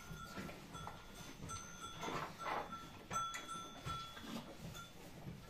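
A calf drinking water from a plastic bucket, with several short slurps and gulps, the clearest about two seconds in. A faint steady high tone runs underneath.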